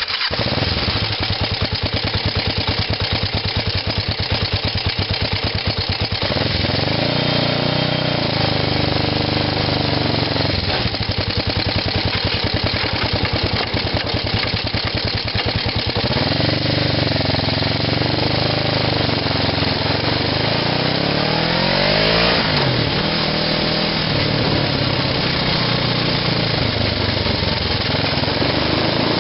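Home-built buggy's small engine running close up, revving up and falling back several times as the buggy pulls away and drives along the road.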